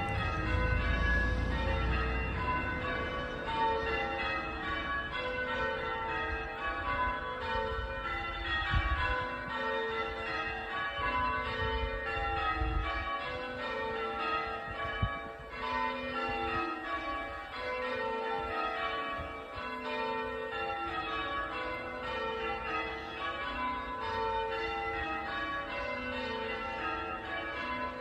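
Five church tower bells, cast by Taylor's of Loughborough in 1920, being rung one after another in steadily repeating descending sequences.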